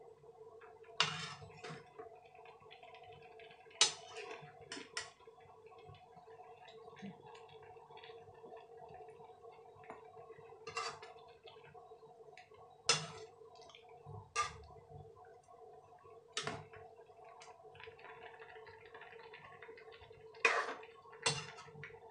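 A metal spoon stirring thick chicken curry in a metal pan, with about ten sharp scrapes and clinks spread irregularly through, while the curry simmers. A steady hum runs underneath.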